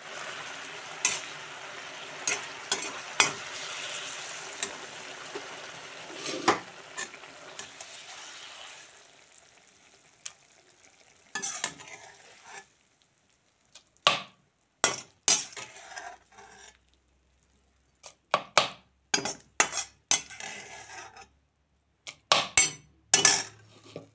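Onion slices frying in oil in an aluminium pan, sizzling steadily with sharp clicks of a spoon stirring. The sizzle dies away about nine seconds in, and after that come separate scrapes and knocks of the spoon against the pan.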